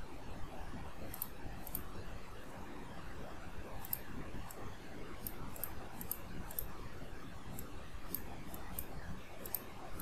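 Faint, irregular clicks from a computer mouse and keyboard, about fifteen over ten seconds, over a low steady background hiss.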